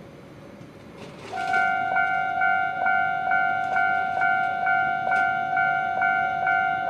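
Japanese level-crossing alarm starting up about a second in: an electronic bell ringing at about two strikes a second over a steady ringing tone, the warning that a train is approaching.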